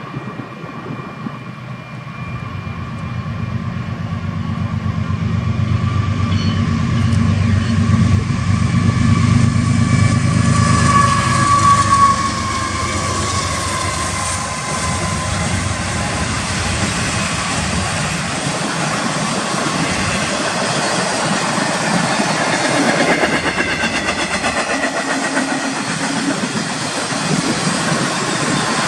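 Two GE diesel-electric locomotives, a Union Pacific ES44AC leading an ET44AC, approach and pass with a deep engine rumble that builds to a peak about ten seconds in. A high whine drops in pitch as they go by. This is followed by the steady rolling wheel-and-rail noise of double-stack intermodal container cars.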